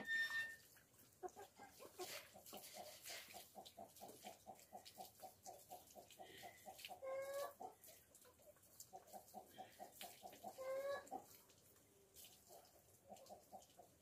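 Chicken clucking faintly: two long runs of quick, even clucks, about five a second, each ending in a drawn-out, rising squawk.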